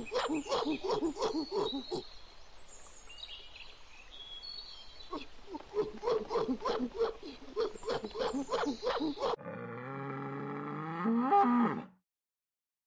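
Highland cow mooing: one long low moo starting about nine seconds in, loudest just before it breaks off about three seconds later. Before it, a gorilla's rhythmic grunting, about four pulses a second, with a few bird chirps in a pause.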